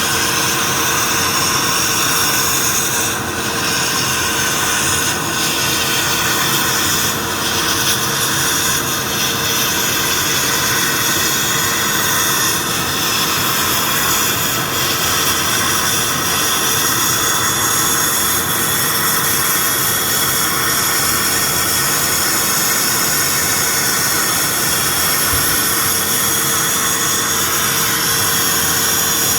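Akwilon CNC automatic sandblasting machine running: a loud, steady hiss of compressed-air abrasive blasting with a steady hum underneath, dipping briefly a couple of times.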